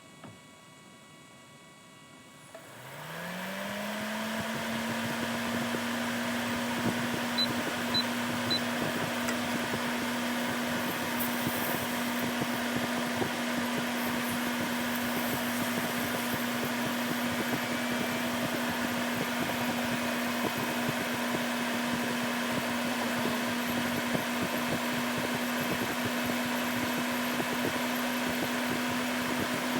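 A car's electric air-conditioning compressor and blower fan starting up about two and a half seconds in. A hum rises quickly in pitch and settles into a steady tone over the even rush of the fan, and both then run steadily while the system is being charged with R134a refrigerant.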